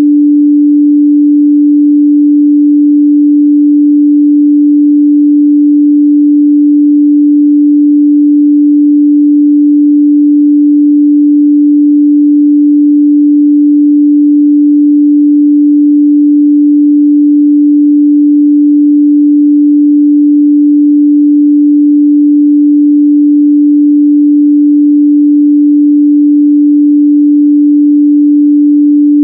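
Continuous 293 Hz sine-wave test tone, a single steady pure pitch held without change at a loud level.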